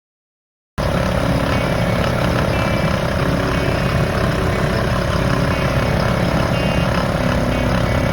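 Portable air compressor running steadily with a constant buzzing hum and rattle, starting abruptly about a second in.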